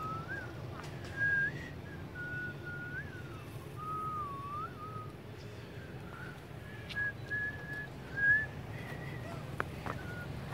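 A person whistling a slow, wandering tune of sliding single notes, over a steady low rumble.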